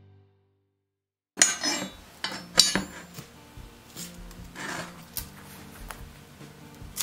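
Music fades out at the start, then after about a second of silence come irregular clinks and clanks of steel flat bar and a forged iron brace being handled and set down on a workbench, the loudest two near the beginning.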